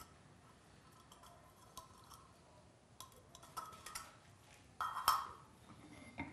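A tin can and a forged iron rod handle lightly clinking and knocking on a steel anvil as they are handled, with a louder metallic clank about five seconds in as the can is set down on the anvil face.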